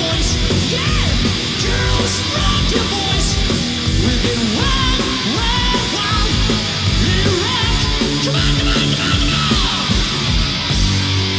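Heavy metal band playing live, loud and steady, with drums, bass and electric guitar, and yelled vocals over the top.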